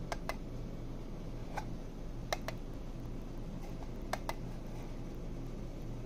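Push switch on a battery-powered LED puck light clicking as its face is pressed, four times, mostly as quick double clicks of press and release; each press steps the light to another colour.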